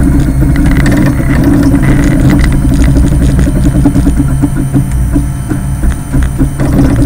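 3D printer printing: its stepper motors run with a steady hum and a busy stream of irregular clicks and rattles as the print head moves.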